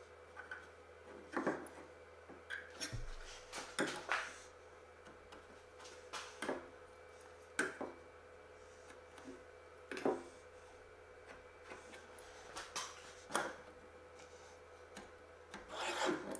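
Scattered light clicks and taps of a metal combination square being set down and slid against a wooden bench rail, with short scratches of a pencil marking lines, separated by pauses. A faint steady hum runs underneath.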